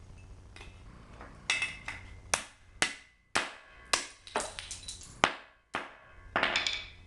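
About ten hammer blows on metal, unevenly spaced, each a sharp clang with a short ring. They come from driving a stuck pin out of the bracket of a Flaming River power disconnect switch.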